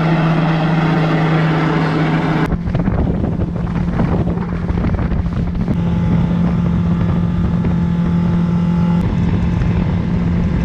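Yamaha 150 hp four-stroke outboard running at speed, a steady engine tone under the rush of wind on the microphone and the boat's wake. It follows a steady droning hum that cuts off sharply about two and a half seconds in.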